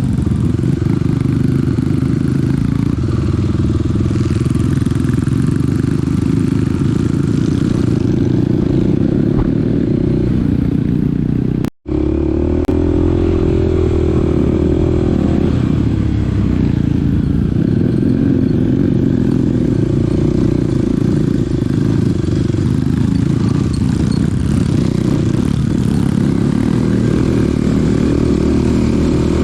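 Small dirt bike's engine running steadily while it is ridden, with the sound cutting out for an instant about twelve seconds in.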